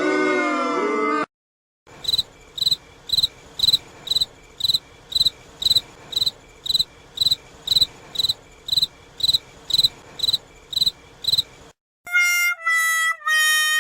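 Cartoon sound effect of a cricket chirping, an even chirp about twice a second over a faint hiss. A gliding cartoon effect ends just before it, and a run of stepped musical tones begins near the end.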